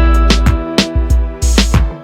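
Background music with a strong bass and a steady beat.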